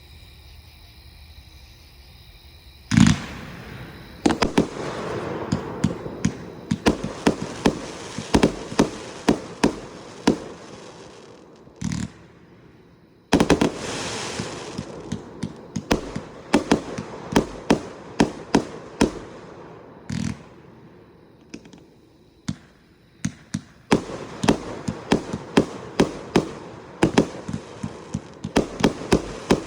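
A 238-shot consumer firework cake firing: a single loud bang about three seconds in, then rapid volleys of sharp shots and bursts over a steady crackle. The volleys come in three runs with short lulls between them.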